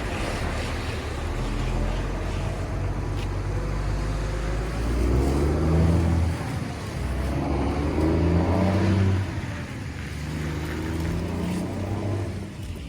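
A heavy engine running, its revs rising and falling a few times, louder about five seconds in and again about eight seconds in.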